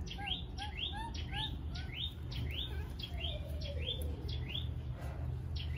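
A baby macaque giving rapid, high-pitched chirping cries, about three a second, for the first few seconds, then again near the end: the begging cry of an infant wanting milk.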